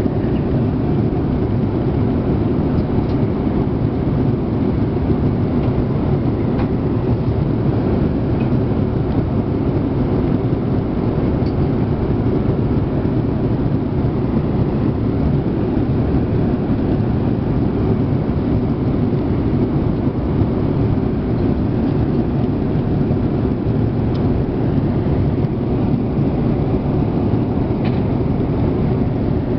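Steady low rumble of cabin noise inside a Boeing 787-8 airliner, the even roar of engines and airflow heard from an economy seat.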